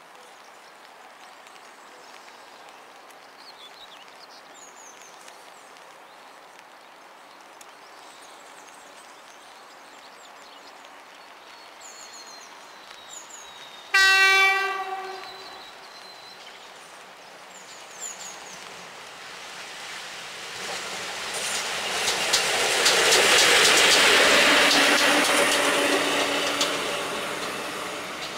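Electric locomotive, a PKP EP07 running light, sounds one short horn blast about halfway in, then passes: a swelling rush of wheels on rail with clickety-clack over the joints, loudest near the end and then fading. Faint birdsong before the horn.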